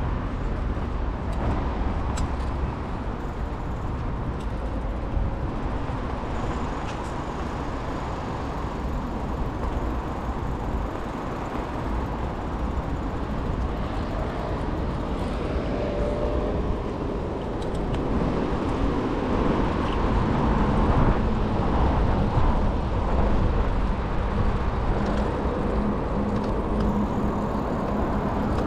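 City street traffic: a continuous rumble of passing car engines and tyres on the road. A low, steady engine hum joins in through the second half.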